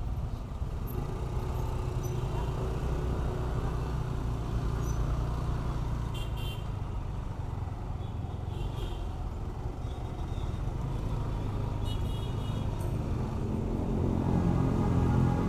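Road traffic heard from a motor scooter creeping through a jam: a steady low rumble of engines from the scooter and the surrounding motorcycles and cars, with a few short horn toots. Near the end an engine grows louder and rises in pitch as it pulls away.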